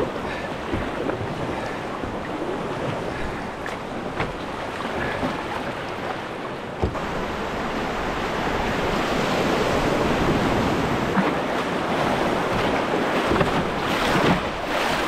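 Whitewater rapids rushing around an open canoe as it runs through them, a steady rush of water that grows louder about halfway through.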